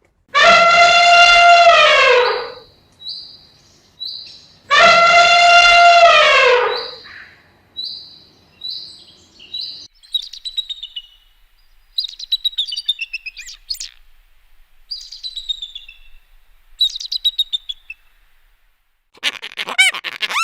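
Two long, loud animal calls about four seconds apart, each dropping in pitch at the end, with short high peeps between them; then a series of quick, high bird chirps, each sweeping down in pitch.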